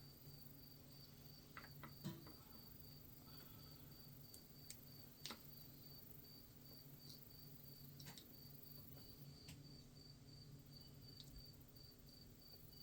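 Near silence: a faint cricket chirping in a steady, even pulse, with a few faint light clicks from handling wiring.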